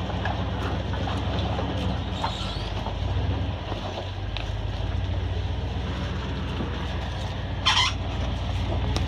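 Chevy K10 pickup on 38.5-inch Super Swamper TSL tires crawling along a dirt trail: its engine runs low and steady, with scattered small clicks and knocks. A brief, high, wavering squeal cuts in near the end.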